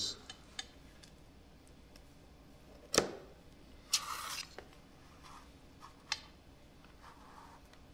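Pizza scissors snipping through a cheese pizza's crust on a metal pizza pan: a few separate sharp clicks, the loudest about three seconds in, with a short crunching scrape about a second later.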